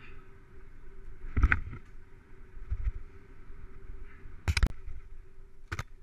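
Mountain bike rolling fast down a dirt trail: steady tyre and riding noise with sharp knocks and rattles as it hits bumps and roots, the loudest a double knock about four and a half seconds in.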